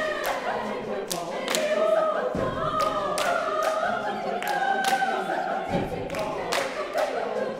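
Choir singing a cappella, several voices holding sustained notes, with frequent short thumps sounding through the singing.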